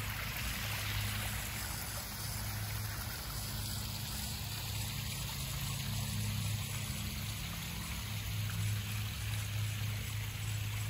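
Small rock waterfall spilling into a garden koi pond: a steady trickling rush of water, over a steady low hum.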